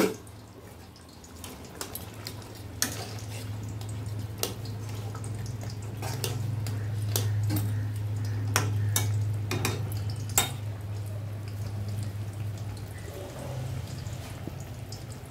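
Thin fish curry simmering at the boil in an aluminium kadai, with a metal spoon clinking sharply against the pan several times as it is stirred. A steady low hum runs underneath.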